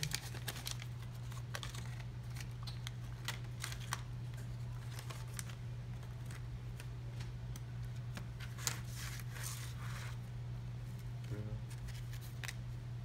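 Cardboard baseball cards being handled and flipped through a stack: scattered light clicks and rustles over a steady low hum.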